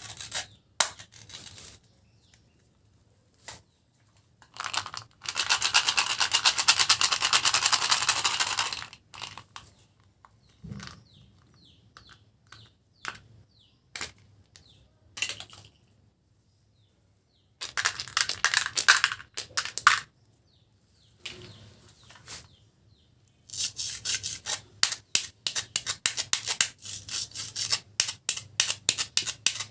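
Small hard-shelled candies, Skittles and M&M's, pouring and clattering into containers as a rapid run of tiny clicks. There are three pours: a long one about five seconds in, a shorter one in the middle and a longer one toward the end, with scattered single clicks and taps between.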